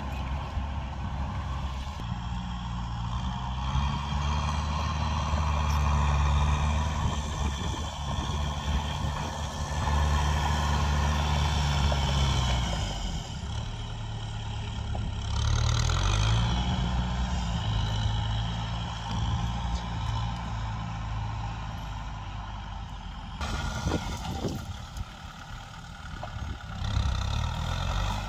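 Kubota farm tractor's diesel engine working under load, running steadily, its pitch dropping about halfway through and climbing again soon after.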